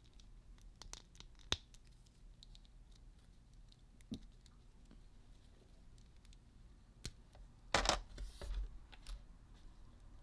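Small plastic clicks and scratches from handling a MAFEX Carnage action figure's parts, with a louder cluster of plastic clatter about eight seconds in.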